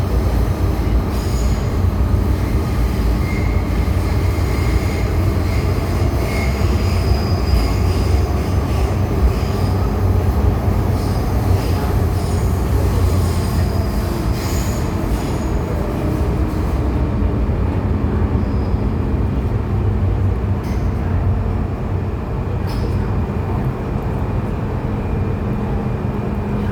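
MTR Tseung Kwan O Line M-Train running at speed with a steady low rumble. Thin high squealing tones come and go through the first half and die away about two-thirds of the way through. A few sharp clicks follow in the later part.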